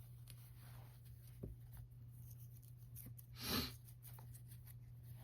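Faint handling sounds of a cast copper piece being worked into a pouch: a soft click, then one short rustle a little past the middle, over a steady low hum.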